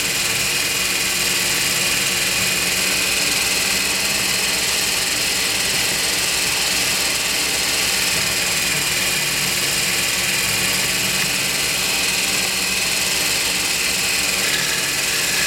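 Small metal lathe running steadily while its cutting tool faces off the end of a pool cue shaft, peeling off curly chips.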